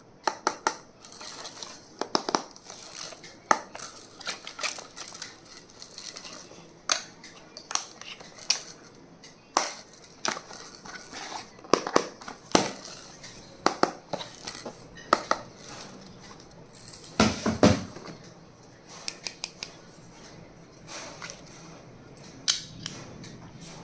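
Stationery and its packaging being handled and unwrapped: irregular sharp clicks and taps of small hard items, with crinkling and rustling in between. A longer, denser rustle comes a little past the middle.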